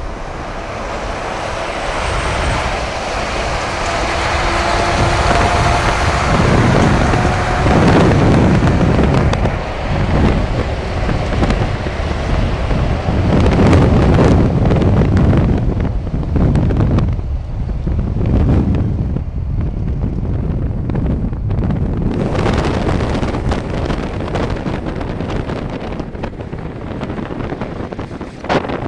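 Scania R560's V8 diesel engine running, with wind buffeting the microphone. It gets louder over the first eight seconds or so, stays loud through the middle and eases off toward the end.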